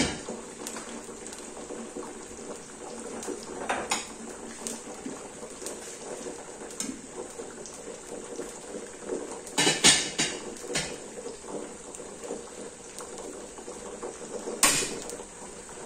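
Metal slotted spoon clinking against a stainless steel pot: a knock at the start, another with a short ring about four seconds in, a cluster of clinks around ten seconds in, and one more near the end. Underneath runs the steady hiss and bubble of water heating on a gas stove.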